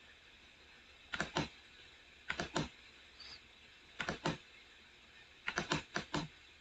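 Sharp clicks of a computer keyboard and mouse, in four short clusters of two to five clicks each.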